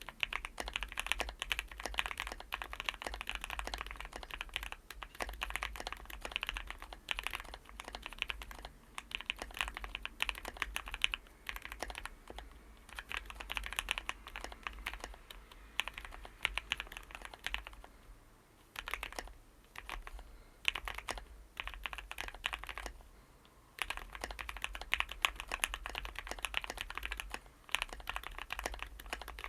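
Typing on a Zoom65 EE R2 mechanical keyboard with an FR4 plate, Gateron Oil King linear switches and Novelkeys Cherry Stone keycaps: quick runs of key clacks, with short pauses twice in the second half.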